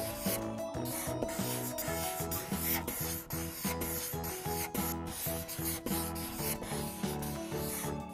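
Felt-tip marker drawing on paper: scratchy strokes rubbing across the page, broken by short pauses between strokes. Soft background music with a bass line plays underneath.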